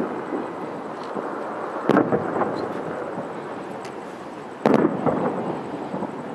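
Aerial fireworks shells bursting: three sharp booms, right at the start, about two seconds in and a little under five seconds in, each trailed by a few smaller pops.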